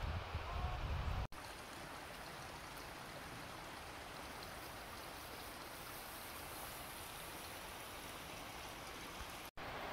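Steady, even rushing of flowing stream water. A short low rumble opens the sound and stops abruptly about a second in, and there is a momentary dropout near the end.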